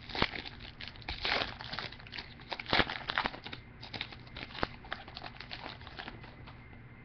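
A foil pack wrapper of 2014 Topps WWE Chrome trading cards being torn open and crinkled in the hands. The rapid crackling is dense at first and tapers off near the end.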